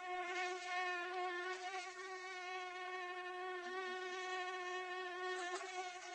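Mosquito wing whine: a steady, high buzz whose pitch wavers slightly.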